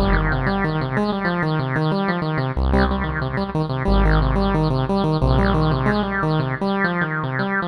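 E-MU Audity 2000 synthesizer module playing a fast repeating note sequence, about seven notes a second, over deep bass notes that change every second or so. A quick falling swoop comes in several times.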